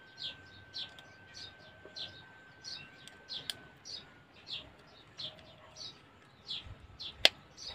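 A small bird chirping over and over, short falling chirps about two a second. A single sharp click sounds near the end.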